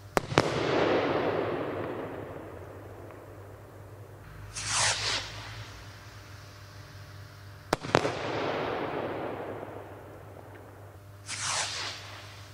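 Consumer firework battery going off: two sharp bangs about seven and a half seconds apart, each trailing into a long echoing rumble. A few seconds after each bang comes a short hiss that falls in pitch.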